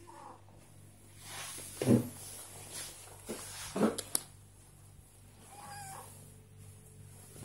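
Pet cat meowing a few times in a low, rough voice that sounds sick, though the cat is well. The two loudest meows come about two seconds apart, and a fainter one follows near the end.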